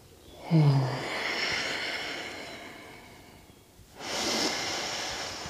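A woman breathing deeply: a long audible exhale that opens with a short voiced sigh and fades out over a couple of seconds, then, about four seconds in, a deep inhale.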